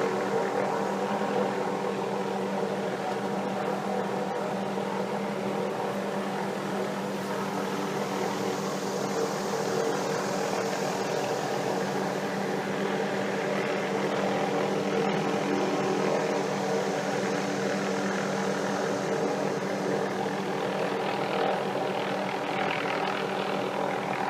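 Helicopter running steadily, a continuous drone with several steady humming tones and a slight swell in loudness now and then.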